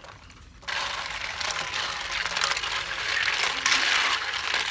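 Snail shells clicking and clattering against each other and against a steel bowl as a hand rubs and stirs them in water to wash them, with the water splashing. The sound starts about a second in and grows louder toward the end.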